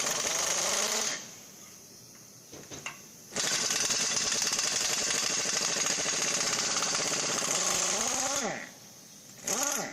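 A power tool running in bursts: it stops about a second in, runs again for about five seconds and winds down with a falling pitch, then gives one short burst near the end.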